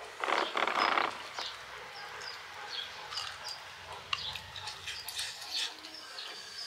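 A person eating millet dhido with the fingers close to the microphone: a loud sucking slurp about a second long at the start, then small wet smacks and clicks of chewing.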